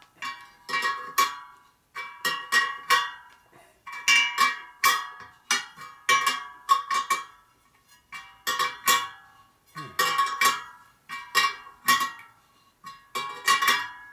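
Steel spokes of a laced motorcycle wheel struck one after another with a spoke wrench: a quick run of metallic pings in groups of a few, each ringing at much the same pitch. The spokes are being checked for tension and are all tight.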